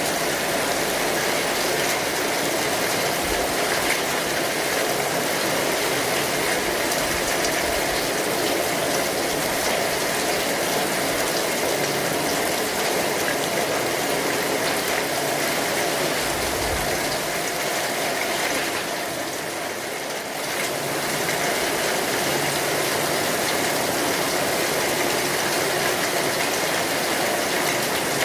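Steady rain falling on an umbrella canopy, a dense, even patter that eases slightly for a moment about two-thirds of the way through.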